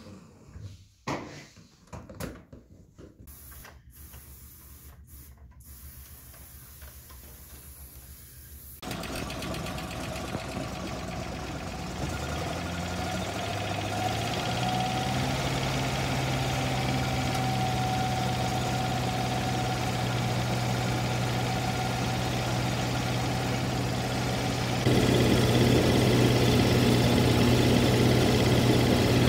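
Chief II truck-mounted carpet-cleaning unit running with a steady engine drone that climbs a little in pitch as it comes up to speed. It sounds louder close to the machine near the end. It is preceded by several quieter seconds with a few knocks.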